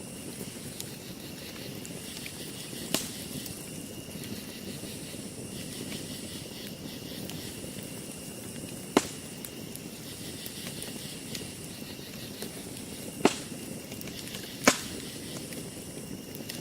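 Wood campfire burning with a steady low crackle, broken by four sharp pops of the burning wood.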